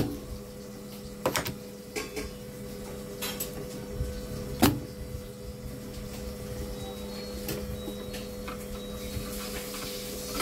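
Spring-loaded desoldering pump firing as it sucks solder from the joints of the bloated B+ filter capacitor: a sharp snap right at the start and another about four and a half seconds in. Smaller clicks and knocks of handling fall between, over a steady low hum.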